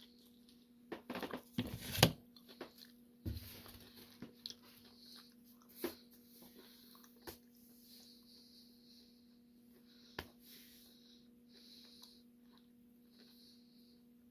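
A person biting into and chewing a slice of buffalo chicken pizza, with a few sharp crunchy sounds in the first couple of seconds and then softer, intermittent chewing. A faint steady hum runs underneath.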